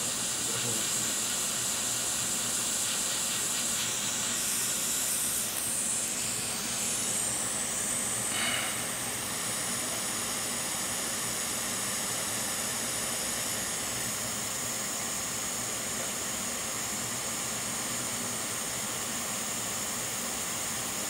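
Quick 861DW hot air rework station blowing a steady hiss of hot air, reflowing a replacement chip onto a MacBook logic board. The hiss changes for a few seconds about 4 s in, then settles slightly quieter.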